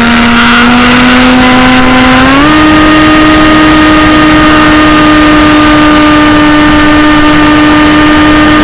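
AXN RC plane's electric motor and propeller heard onboard: a steady whine that rises a little about half a second in, then climbs to a higher pitch about two and a half seconds in and holds there as the throttle is opened up. An even rush of wind noise lies under it.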